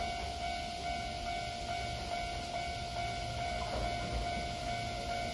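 Japanese railway level-crossing alarm ringing, a repeated electronic bell tone about two strikes a second, warning that a train is coming. A low rumble sits underneath.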